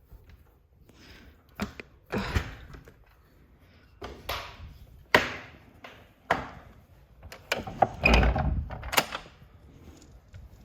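A series of wooden knocks, thuds and short scrapes, several seconds apart, with a louder cluster near the end.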